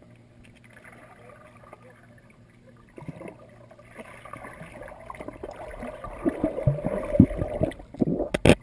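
Muffled underwater sound of a boxer dog diving into a pool and paddling down to the bottom. Bubbling and churning water starts suddenly about three seconds in and grows louder, with low knocks. A loud knock comes near the end as the dog reaches the toy beside the underwater camera.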